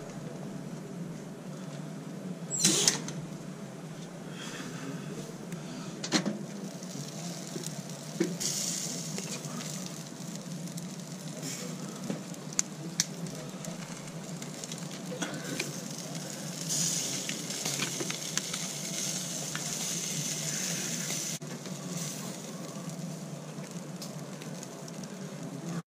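Butter-basted Balmain bugs (slipper lobsters) sizzling on a barbecue grill, with the sizzle stronger in the middle of the stretch. A loud sharp clank comes about three seconds in, and scattered clicks and knocks follow.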